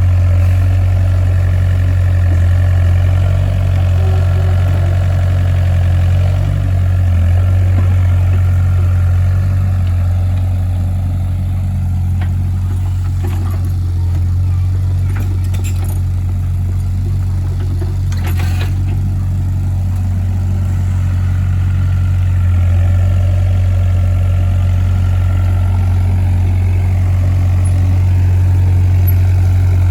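Heavy engine running steadily with a deep, even drone; a few light clicks or knocks come about halfway through.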